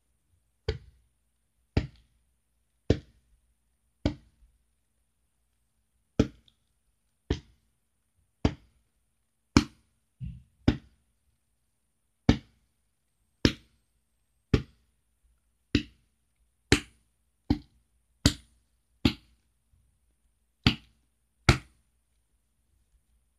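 Hand patting a baby doll's back as if burping it: about twenty sharp pats, roughly one a second, with a short pause about five seconds in.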